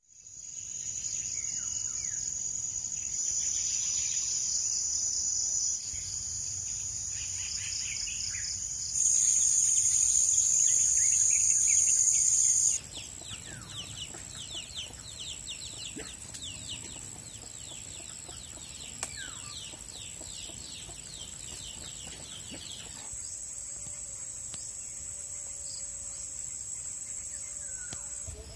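Outdoor rural ambience of insects shrilling in a steady high-pitched drone. The drone shifts in pitch and loudness several times and is loudest for a few seconds about a third of the way in. A long run of rapid, quickly repeated chirps comes through in the middle, with occasional bird calls.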